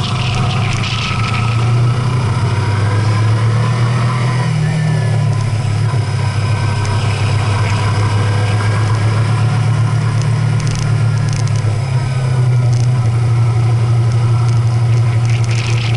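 Vehicle engine running steadily with a low hum. Its pitch rises slightly for a moment about four seconds in.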